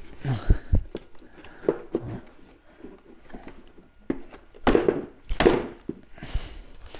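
Plastic bumper trim pieces being handled and pushed into place: irregular knocks and clicks, with two louder scraping rustles a little past the middle.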